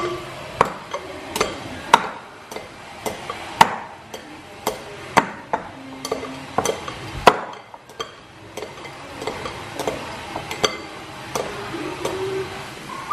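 Hands kneading a soft maida (all-purpose flour) dough in a glass mixing bowl, with irregular sharp knocks against the glass about once or twice a second.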